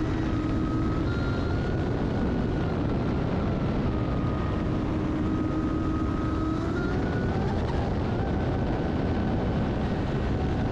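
Traxxas Spartan RC boat's 1600kv brushless motor whining at high speed, over the rush of water and wind past the boat-mounted camera. The whine steps up and down in pitch with the throttle and climbs about seven seconds in as the boat speeds up.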